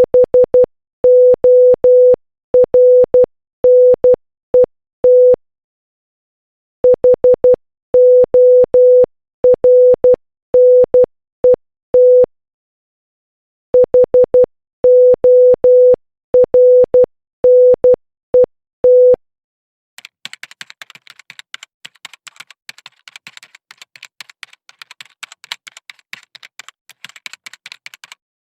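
Morse code practice tone, a steady beep of about 500 Hz keyed in dots and dashes, sent in three runs with short pauses between them. About twenty seconds in the tone stops and a dense, irregular run of faint clicks and crackles follows until near the end.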